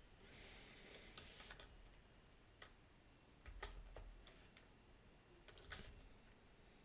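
Faint computer keyboard keystrokes: a few scattered key presses while typing code.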